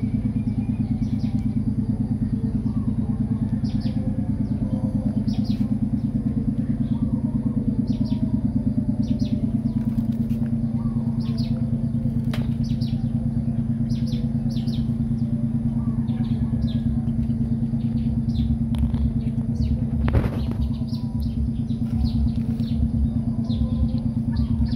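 A small engine running steadily, a low, even drone with a fast pulse, with short bird chirps scattered over it and a single sharp knock about twenty seconds in.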